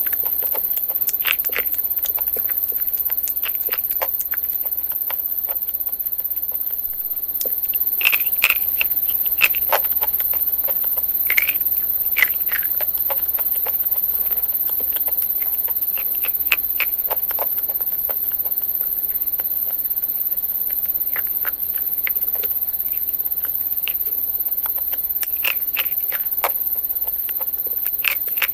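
Crispy fried chicken being bitten and chewed: irregular crunches and crackles, some sharper than others, over a steady hiss.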